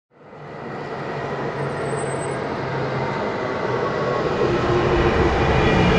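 Berlin S-Bahn electric train pulling into a station, a steady rumble with faint whining tones that fades in from silence at the start and grows louder as it approaches.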